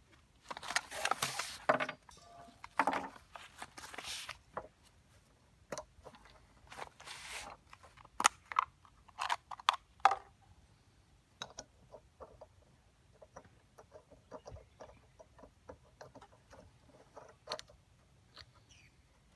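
Camping utensils and gear being handled: a few seconds of rustling, then scattered light clicks and clinks of metal, some with a short ring, and a run of small ticks.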